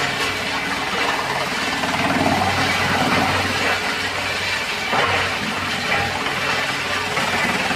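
216 model wood chipper running steadily: a continuous low machine hum under an even rushing noise, with no breaks.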